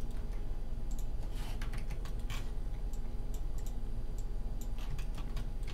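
Computer keyboard keystrokes, scattered irregular clicks, over a steady low electrical hum.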